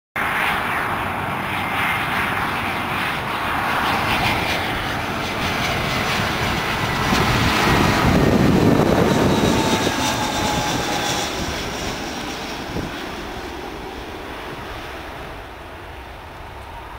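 Airbus A320 jet airliner on final approach passing low overhead: twin jet engines running with a rushing noise and a whine that falls in pitch, loudest about eight seconds in, then fading as it moves away toward the runway.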